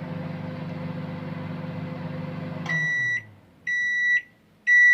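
Microwave oven running with a steady hum while heating a cup of milk, then switching off about two and a half seconds in as the cycle ends. Three high beeps follow, about a second apart, signalling that the heating time is up.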